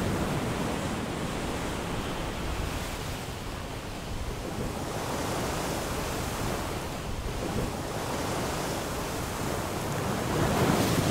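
Sea waves washing, a steady rush of water noise that slowly ebbs and swells, growing louder again near the end.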